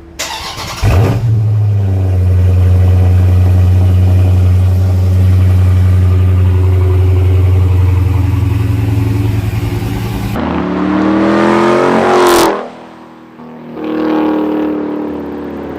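Dodge Charger Daytona 392's 6.4-litre HEMI V8 firing up about a second in and running with a steady deep note, then revving up twice.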